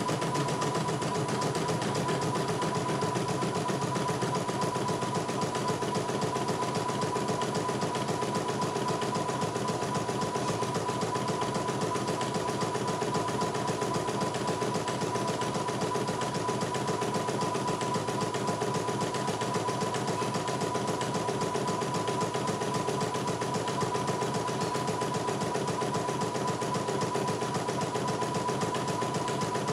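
CNY E900 portable embroidery machine stitching steadily, its needle running at a fast, even rate with a constant tone through it as the hoop moves the fabric.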